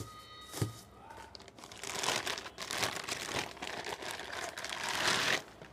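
Thin plastic bag crinkling and rustling as it is handled and pulled off a new cylinder block and piston kit, mostly from about two seconds in, with a light knock about half a second in.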